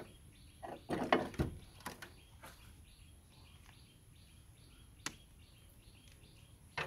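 Car battery being set down into its tray and pushed into place: a handful of dull plastic knocks and clunks, several close together about a second in and a few single ones later. Birds chirp faintly throughout.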